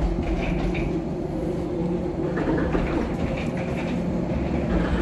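Airliner cabin ambience: a steady low rumble and hum of the aircraft's engines and air system while it sits at the gate, with faint scattered sounds in the cabin.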